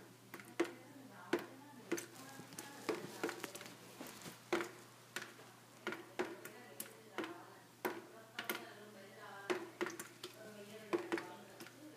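Water from a leaking roof dripping through the ceiling into a metal wastebasket. The drops land irregularly, about two a second, each a sharp plink with a short ringing tone.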